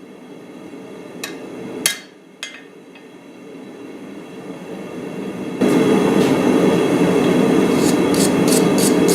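A few light metallic clinks of blacksmithing tools. Then a loud, steady rushing noise starts suddenly about five and a half seconds in, with faint metallic ticks over it near the end.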